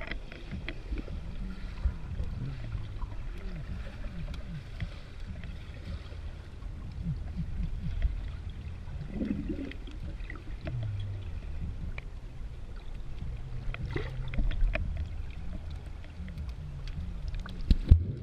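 Muffled underwater sound of a pool picked up by an action camera held below the surface: a steady low rumble with faint wavering tones and scattered sharp clicks, and a short louder splash near the end.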